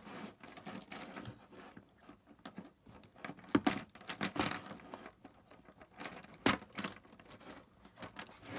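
A small keychain cutting tool scraping along the edge of a cardboard box as it slits the seal, with the attached keyring and charms jingling and a few sharp clicks.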